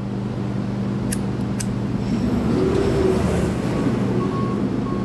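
Steady hum of electric shop fans, with two sharp clicks about a second in from a disposable lighter being struck to melt the cut end of nylon starter rope.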